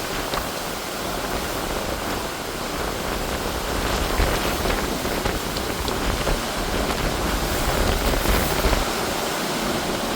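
Heavy storm rain falling steadily, with gusts of wind rumbling on the microphone, strongest about eight seconds in.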